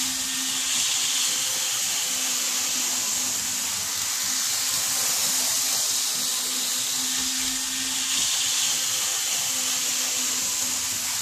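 Model trains running round the track: a steady whirring hiss with a faint low hum underneath, the model Class 70 locomotive pulling East Coast carriages among them.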